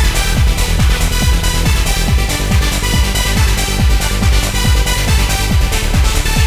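Trance music with a steady kick drum about twice a second and regular hi-hat ticks over sustained synth chords.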